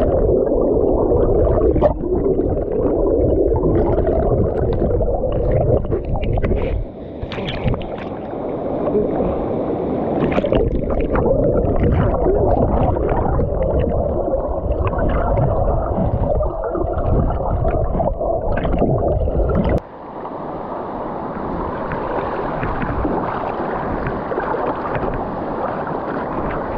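River water rushing and bubbling as heard by a submerged camera: a muffled, deep rumble with scattered clicks and pops of bubbles. About twenty seconds in the low rumble drops away and the sound turns thinner and hissier, shallow water rippling over rock near the surface.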